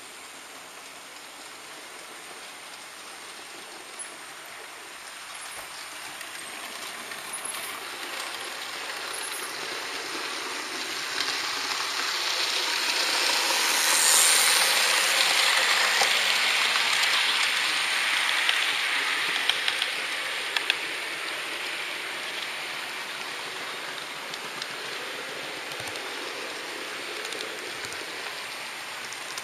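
HO-scale model trains running on the track: a steady rolling hiss that swells to its loudest about halfway through as a second model train passes on the adjacent track, then slowly fades, with a few light clicks.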